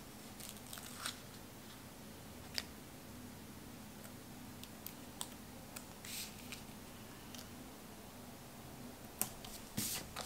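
Quiet pen-and-paper handling on a planner sticker sheet: scattered light ticks and a few brief scratches, over a faint steady hum.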